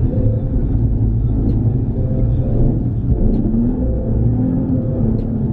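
Nissan 350Z's V6 engine running with a low rumble, its revs rising and falling as the car drifts.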